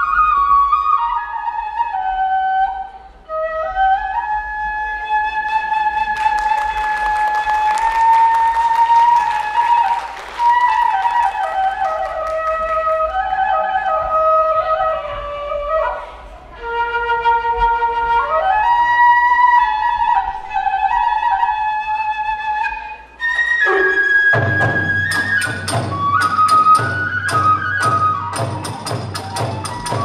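Japanese bamboo kagura flute playing a solo melody with pitch slides and short breaths between phrases. About 24 seconds in, a drum and clashing metallic hand cymbals join in with fast, steady beats, starting the kagura ensemble.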